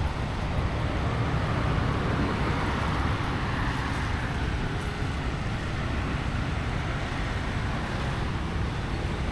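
Steady road traffic noise from vehicles passing on a busy street.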